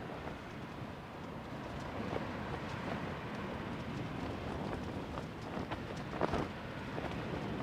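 Sea waves washing over the shingle of a pebble beach: a steady hiss with scattered small clicks of stones, and a sharper clatter about six seconds in.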